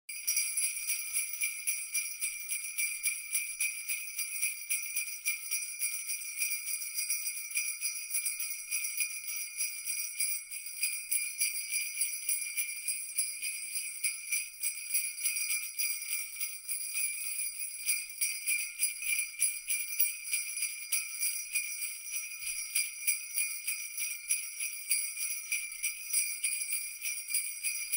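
Sleigh bells shaken continuously in a steady rhythm, about three shakes a second, with a bright, high metallic jingle.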